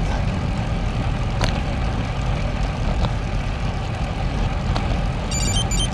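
Steady low rumble of wind and road noise on the camera microphone while riding a road bicycle, with a faint click about a second and a half in and a brief run of high chirps near the end.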